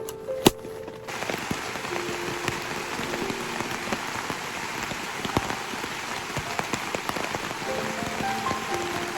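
Steady patter of drops on a surface, like rain, with scattered small ticks. It starts abruptly about a second in, under soft background music notes.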